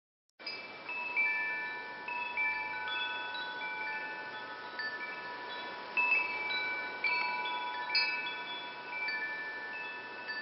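Wind chimes ringing, starting about half a second in: many bright, overlapping tones struck at irregular moments, each ringing on, over a faint hiss.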